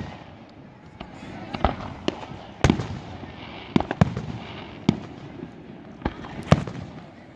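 Aerial fireworks shells launching and bursting: about ten sharp bangs at uneven intervals, the loudest about two and a half and six and a half seconds in.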